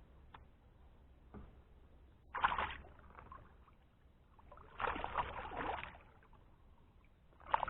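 A hooked bass splashing at the water's surface beside a kayak as it is brought in, in three short bursts, the middle one the longest.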